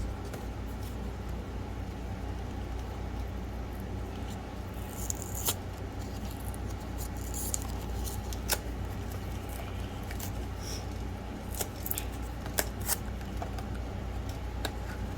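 A small cardboard blind box being worked open by hand: scattered soft crinkles, taps and clicks, a few of them sharper around the middle and near the end, over a steady low hum.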